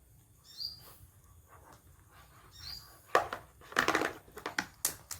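A bird gives short, high chirps about every two seconds. From about three seconds in there is a quick run of sharp clicks and knocks, louder than the chirps.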